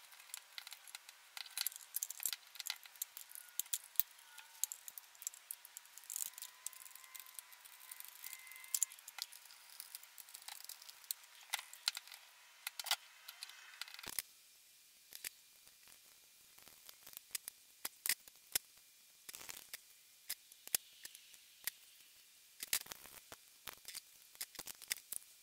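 Faint, irregular clicks and small rattles of hands working on electrical wires and a power plug, wiring and taping the welder's supply cord.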